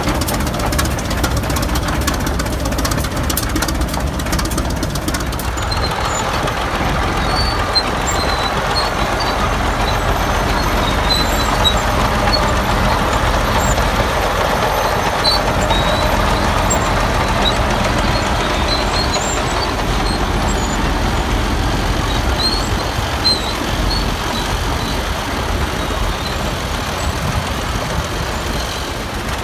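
Vintage tractor and crawler engines running steadily as the machines move past, a continuous low engine rumble mixed with mechanical noise.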